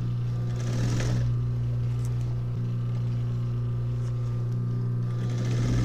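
Steady hum of an industrial sewing machine's motor running idle. Denim rustles as it is shifted under the presser foot, about a second in and again near the end.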